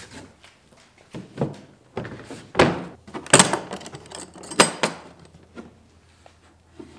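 Hard plastic Bosch router carrying case handled on a wooden workbench: a run of thunks and sharp plastic clicks as it is set down and its latches are snapped open, the loudest clicks about halfway through.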